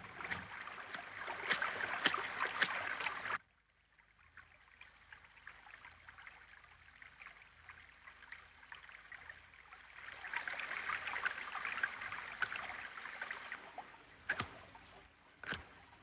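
Shallow stream running and splashing over stones. The sound cuts off abruptly about three seconds in, stays very faint for several seconds, then returns about ten seconds in, with a few sharp clicks near the end.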